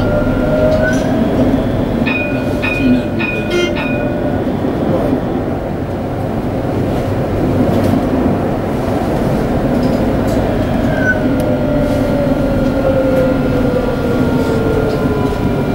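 A tram running on its rails, heard from the driver's cab: a steady rumble with the motors' whine over it, rising slightly in pitch early on and falling gradually through the second half. A few short high beeps and clicks come about two to four seconds in.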